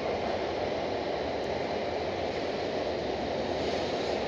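Steady rolling noise of a freight train of loaded double-deck car-carrier wagons passing on the rails.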